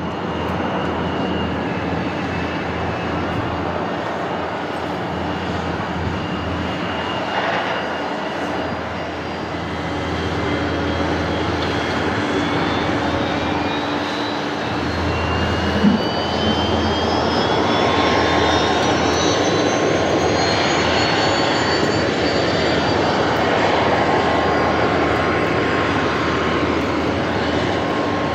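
Embraer 175's twin turbofan engines, first a steady jet rush while taxiing, then a whine rising in pitch through the middle of the stretch as they spool up to takeoff thrust. A short thump comes just past halfway.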